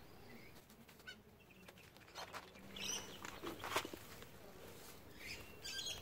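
Quiet rustling and crackling of a gloved hand digging through soil and dry straw mulch, with a sharper crackle a little past the middle. A few short bird chirps come in over it.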